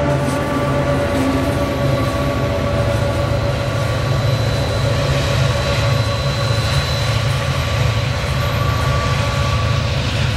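HO scale model freight train running past, its sound-equipped SD24 diesel locomotive models giving a steady, pulsing low engine rumble with a few steady whining tones above it.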